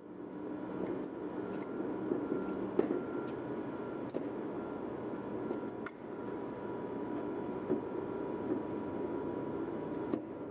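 Steady workshop background noise with a faint hum, broken by light clicks and knocks as the magnetic saw and metal work surface are handled and wiped down; the sharpest knock comes a little under three seconds in.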